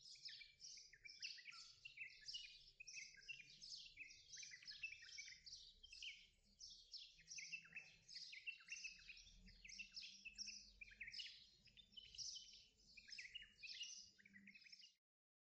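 Small birds chirping in a busy chorus, many short calls overlapping without a break, cutting off suddenly near the end.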